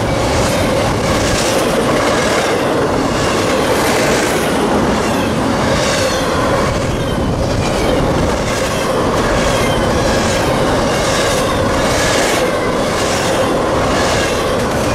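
Double-stack intermodal container cars of a CSX freight train rolling past close by: a steady loud rumble of steel wheels on rail with a regular clickety-clack as the wheels cross rail joints, and a faint high wheel squeal.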